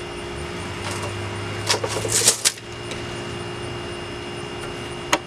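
Hand-tool handling while a 2x4 is measured and marked: a tape measure and pencil on the board give a few short scrapes and clicks, loudest about two seconds in, and one sharp click near the end. A steady background hum runs underneath. The saw is not cutting.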